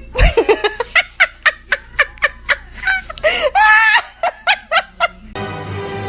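A person laughing in rapid breathy bursts, with a few higher-pitched squealing notes in the middle. Near the end the laughter stops and music begins.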